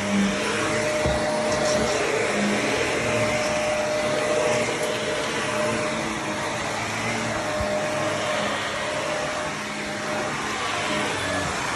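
Shark vacuum cleaner running steadily on carpet: a continuous motor hum under the rush of air.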